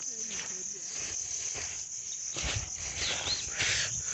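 Steady high-pitched insect chorus in a rural orchard after rain. A couple of soft footsteps in wet, sinking mud come about two and a half seconds in and again near the end.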